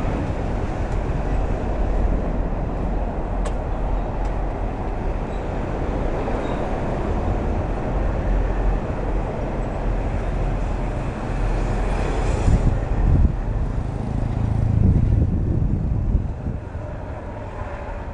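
Steady rumble of traffic on a toll road, tyres and engines on the road surface. A louder vehicle passes about twelve seconds in, and the rumble drops off after about sixteen seconds.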